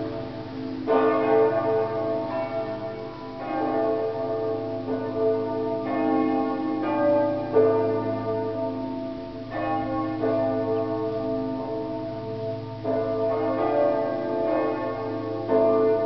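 Several church bells pealing together, their strokes overlapping every second or so, each ringing on over a steady deep hum.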